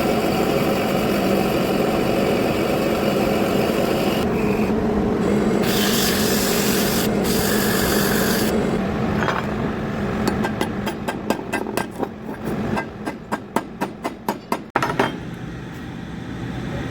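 Metal lathe running with a steady hum while a tool scrapes at the metal. About ten seconds in, a run of quick, evenly spaced sharp taps begins, roughly three a second for about five seconds, and then it settles back to a quieter steady running.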